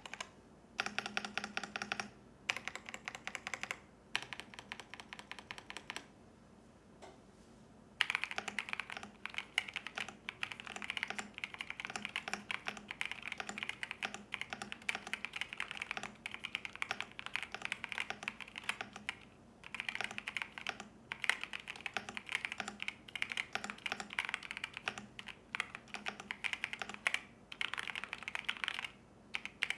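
Typing on an AKKO 5075B mechanical keyboard with linear switches. For the first several seconds the keystrokes come in short groups with quiet gaps between them; from about a third of the way in they become continuous fast typing, with only brief pauses.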